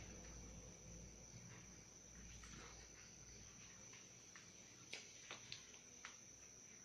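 Near silence: a faint, steady high-pitched whine, with a few faint short clicks about five to six seconds in.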